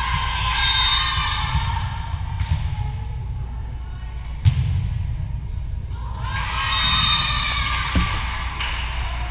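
Girls' voices shouting and cheering in a gym, swelling at the start and again about six seconds in, with a sharp smack of a volleyball being hit about four and a half seconds in.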